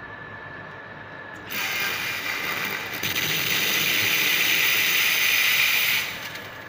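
Espresso machine steam wand being purged into the drip tray before frothing milk: a steady hiss of steam that starts about a second and a half in, gets louder about three seconds in, and cuts off sharply about six seconds in.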